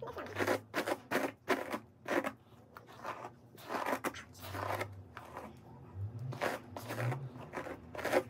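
A paddle hairbrush dragged through long, tangled hair: a run of short brushing swishes, about one or two a second, unevenly spaced.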